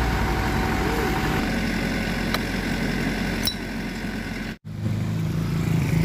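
Motor vehicle engines running as traffic passes on the road, with two light clicks in the middle. The sound cuts out for an instant about four and a half seconds in, then a steadier low engine hum carries on.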